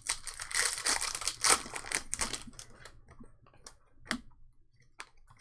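Crinkling and tearing of a foil trading-card pack wrapper for about two and a half seconds, then a few scattered light clicks and taps as the cards are handled.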